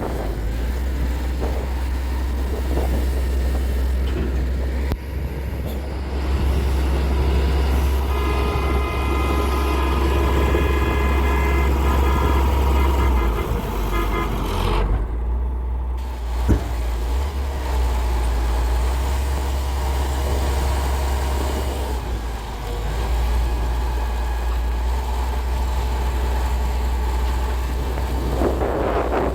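Heavy diesel machinery engine running steadily with a deep rumble. For several seconds in the middle a steady higher, horn-like tone sounds over it, and a single short knock follows a few seconds later.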